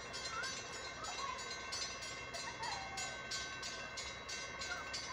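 Railroad crossing warning bell ringing in quick, even, repeating strokes while the crossing signals are active, warning of an approaching train.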